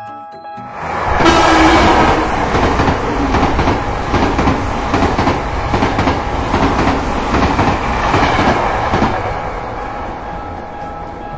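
Train passing, wheels clattering over the rail joints. It comes in suddenly about a second in and fades away near the end.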